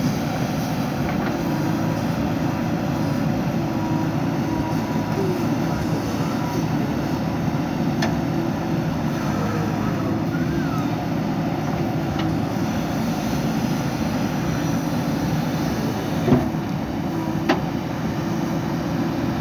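JCB backhoe loader's diesel engine running steadily under work, with two sharp knocks about a second apart near the end.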